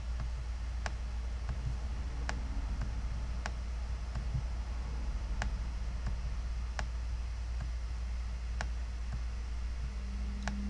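Computer mouse clicking: single sharp clicks every second or two, about seven in all, over a steady low hum.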